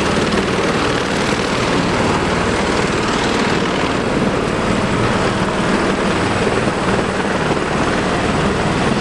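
Steady, loud crowd din of many overlapping voices in a large exhibition hall.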